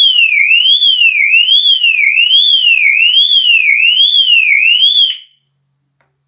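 Lynteck burglar alarm bell box's siren going off when it is powered from its backup battery: a loud electronic tone sweeping up and down a little faster than once a second, which cuts off by itself about five seconds in.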